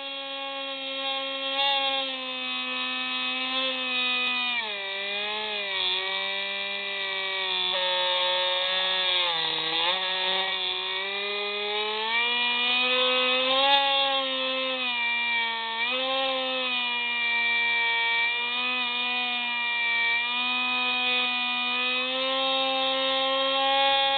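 Hubsan Spyhawk RC plane's electric motor and propeller whining steadily, recorded by the plane's own onboard camera. The pitch drops about four seconds in, sinks lowest near ten seconds, climbs back again, and dips briefly once more near sixteen seconds as the motor speed changes.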